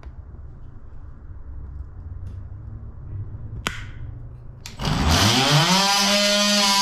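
Ryobi oscillating multi-tool switched on near the end, its motor spinning up in a quick rising whine and then running at a steady high buzz.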